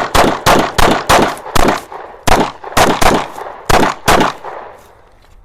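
Glock 45 9mm pistol, fitted with a Stiffler Manufacturing slide, firing about ten shots in quick succession, roughly two to three a second, each with a short ringing tail; the shooting stops a little after four seconds in.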